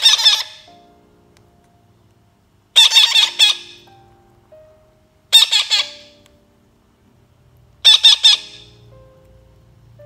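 Baby parakeets squawking in four short bursts of rapid, harsh, chattering calls, about one every two and a half seconds, the calls of chicks begging while being hand-fed. Faint background music runs underneath.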